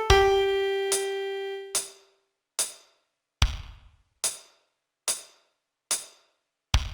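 A piano note held and fading out over the first two seconds. It is followed by a steady ticking beat, about one tick every 0.85 seconds, with a deeper, heavier hit on every fourth tick.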